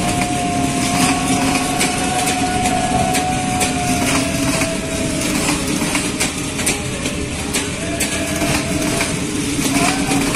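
Passenger train coaches rolling slowly past, wheels clicking over the rail joints with a steady rumble. A high squeal runs along with it, dropping slightly about four seconds in and returning near the end.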